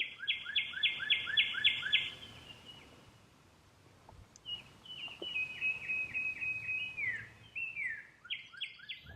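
A songbird singing loud phrases of quickly repeated notes, about four a second, in three bouts with short pauses; the middle bout has falling, slurred notes.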